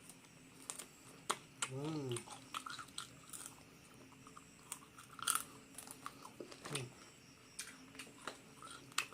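Close-miked chewing of rice and crispy fried duck, with crunchy bites and wet mouth clicks scattered throughout. A short hummed "mm" comes about two seconds in, and a fainter one near the seven-second mark.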